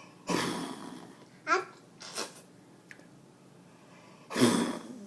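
Young child making pretend sneezes: two breathy, noisy bursts, one just after the start and one near the end, with two short squeaky vocal sounds in between.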